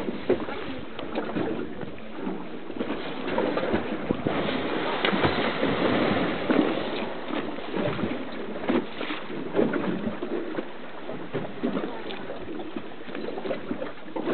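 Steady wind and sea noise on an open boat, swelling about four to seven seconds in, with faint passenger voices.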